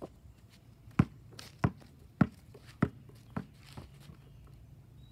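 Basketball dribbled on an asphalt driveway: six hollow bounces a little under two a second, starting about a second in, the last two fainter.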